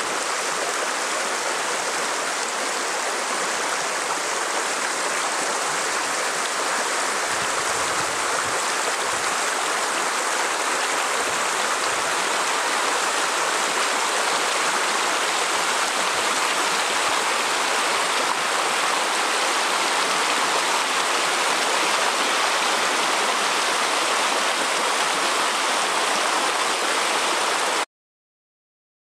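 Rushing river water, a steady unbroken churning noise that cuts off suddenly near the end.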